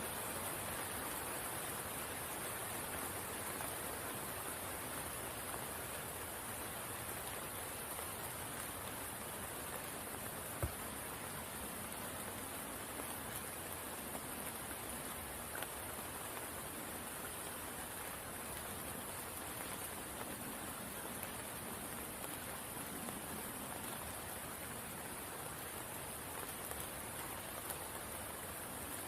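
Steady rain falling on a spring pool, an even hiss of drops on water, with a single soft thump about a third of the way through.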